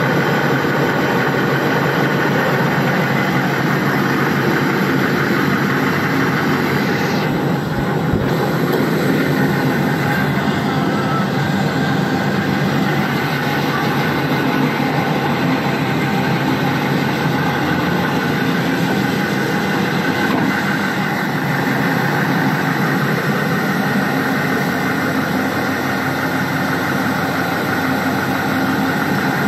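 Duramax V8 turbodiesel of a 2008 GMC 2500HD pickup idling steadily.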